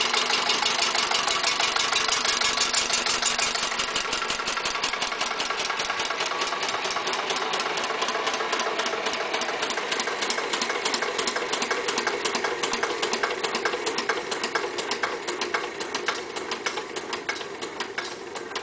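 A Listeroid single-cylinder diesel engine winding down after being shut off. Its rhythmic beat slowly spaces out and grows quieter as the flywheels coast.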